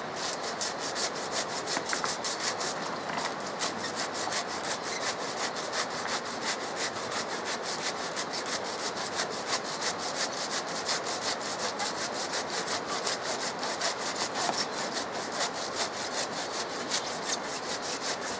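Hand saw cutting through the vine and roots tangled around a stag's antlers, in quick, steady back-and-forth strokes, about four or five a second.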